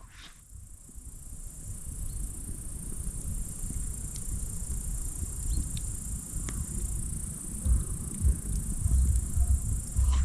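An evening insect chorus: a steady, high-pitched chirring that never breaks, over a low rumble that slowly grows louder, with a few faint ticks.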